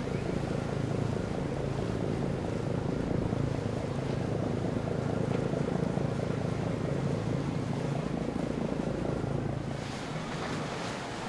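Boat engine running steadily as a low hum, with wind and water noise. The engine sound drops about ten seconds in, leaving mostly wind and splashing water.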